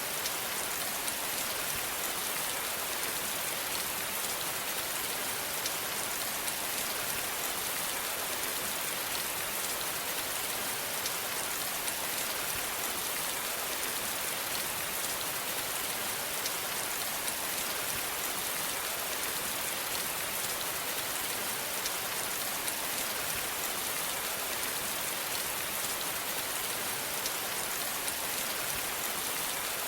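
Steady rain falling, an even hiss full of small drop ticks.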